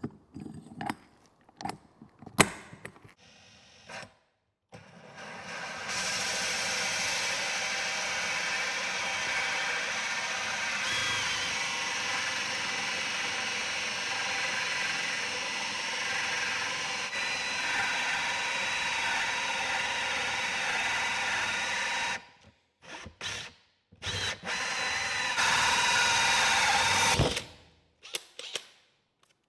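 Cordless drill turning a 64 mm fine-tooth hole saw through 20 mm MDF. First come a few clicks and knocks as the saw is handled. Then the drill runs steadily under load with a faint whine for about sixteen seconds, stops, and cuts again for a couple of seconds near the end.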